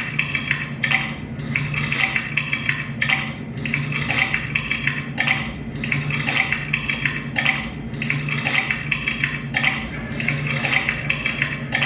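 Soundtrack of a student animation: rhythmic clinking and clattering like dishes and cutlery, repeating about once a second over a steady low hum.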